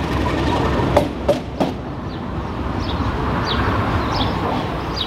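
Diesel-hauled passenger train passing underneath, its wheels clicking over rail joints in the first second and a half, then a steady rumble as it moves away. A few short high chirps sound over the rumble.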